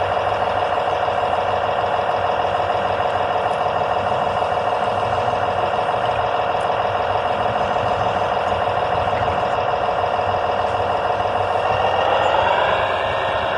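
A truck engine sound idling in a steady drone, then revving up in pitch about twelve seconds in and holding at the higher speed.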